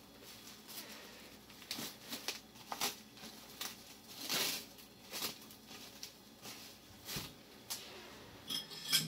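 Intermittent soft rustling and crinkling with light taps as ingredients and containers are handled at the kitchen counter, with a sharper clatter near the end.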